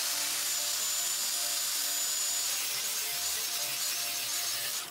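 Angle grinder with a cutoff wheel cutting through steel angle iron, running steadily with a high whine, under background music.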